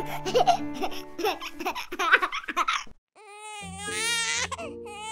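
A short, lively intro jingle with quick voice-like sounds cuts off about three seconds in. After a brief gap, a baby crying sound for a Baby Annabell doll starts, a long wavering wail over soft background music.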